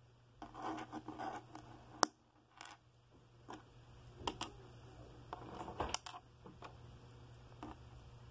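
Scattered light clicks and taps of small plastic Lego bricks being handled and set down on a hard tabletop, with some rustling handling noise. The sharpest click comes about two seconds in.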